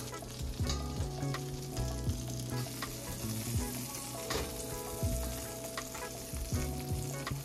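Hot canola oil and butter sizzling in a frying pan, with scattered sharp clicks.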